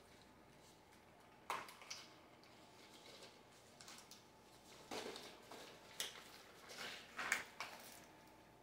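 Faint rustles and soft clicks of a paper medication sheet and a plastic blister card being handled, a handful of short sounds scattered through quiet room tone.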